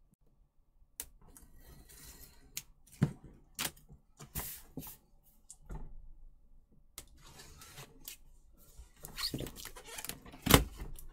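A large cardboard box being opened and handled: irregular scrapes, rustles and knocks of cardboard, with one sharp knock near the end.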